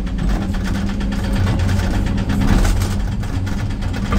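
Excavator-mounted hydraulic breaker hammering into rock in a rapid, continuous rhythm over the excavator's diesel engine running under load, heard from inside the operator's cab.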